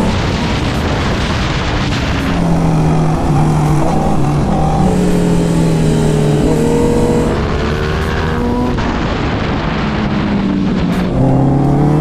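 Sport motorcycle engines running hard at racing speed, heard from onboard with heavy wind rush on the microphone. The engine note climbs and drops in steps as the rider shifts up through the gears. About a second before the end the sound cuts abruptly to a louder engine.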